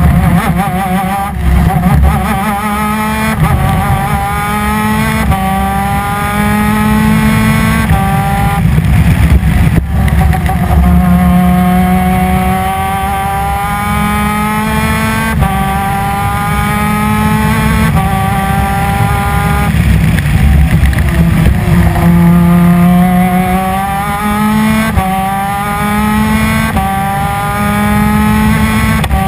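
250 cc two-stroke twin-cylinder PVP superkart engine at racing speed, its pitch climbing hard and dropping at each upshift. It falls to a lower pitch twice as it eases off, then climbs back up through the gears.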